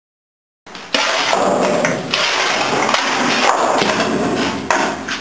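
A shovel scraping along the steel floor of a garbage truck's rear body as it scoops up wet trash. It is one continuous grating scrape that starts about a second in and runs for roughly four seconds.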